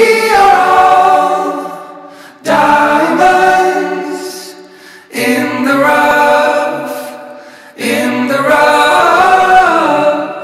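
Music: wordless layered vocal harmonies, a choir-like intro of four held chords, each fading out over about two and a half seconds before the next one starts.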